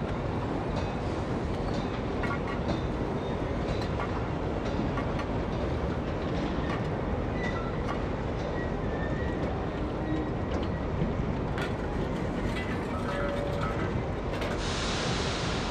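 Coal lumps clinking and scraping against a metal scoop and bunker as the fire of a Sentinel steam waggon's vertical boiler is stoked, over a steady rushing noise. A brighter hiss sets in near the end, as coal is fed into the top of the boiler.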